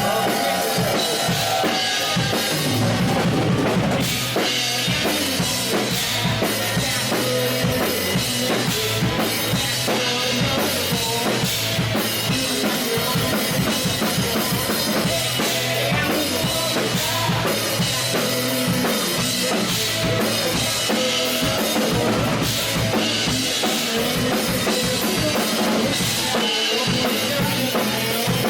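A band playing live, with a drum kit prominent: kick drum and snare keep a steady beat under the other instruments.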